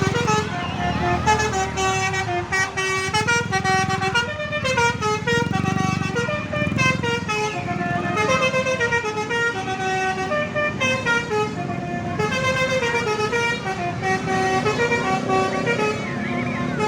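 Indonesian bus 'telolet' horn, a multi-tone musical air horn, playing quick melodies of stepped notes again and again, over a low rumble.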